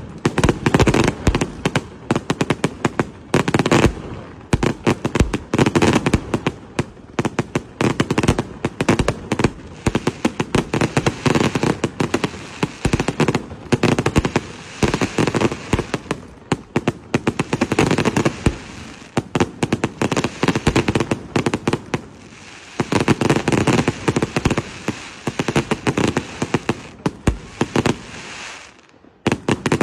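Fireworks going off in rapid, continuous volleys of sharp bangs and crackling pops, with a brief lull near the end.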